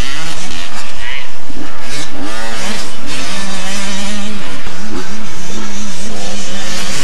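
Two-stroke motocross dirt bikes revving hard around the track, several engines overlapping, their pitch climbing and dropping again and again as the riders work the throttle and shift. One bike holds a steady pitch for a moment about halfway through.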